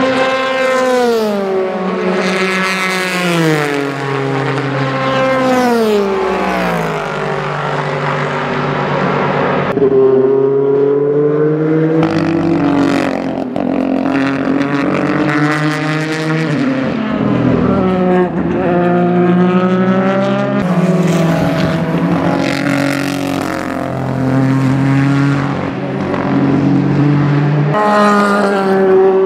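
Ford GT GTE race car's 3.5-litre twin-turbo V6 passing at racing speed. Its pitch drops in steps through several downshifts under braking, then rises and falls again as cars come through and accelerate away.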